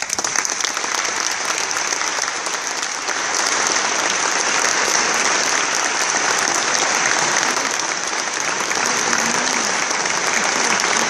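Audience applauding: dense, steady clapping that starts at once with a few first claps and grows a little louder about three seconds in.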